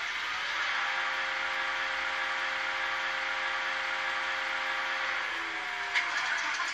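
Recorded O&K diesel locomotive engine sound played by an ESU sound decoder through the small loudspeaker of a Bemo H0e model railcar. It runs steadily with a faint pitched whine that dips and fades about five and a half seconds in, followed by a click about six seconds in.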